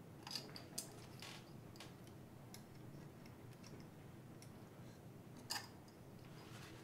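Faint, scattered clicks and taps of metal binder clips being fitted onto the edge of a 3D printer's heatbed plate, the loudest about five and a half seconds in.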